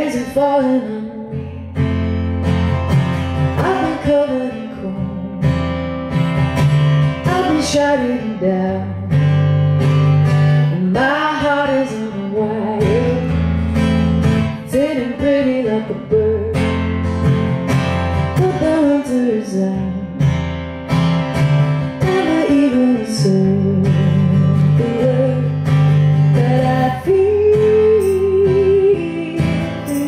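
A woman singing a song while strumming an acoustic guitar. Near the end she holds one long note with vibrato.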